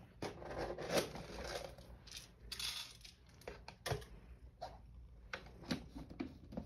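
Light clicks, taps and rustling of small things being handled while cat treats are got out, with a few sharper knocks.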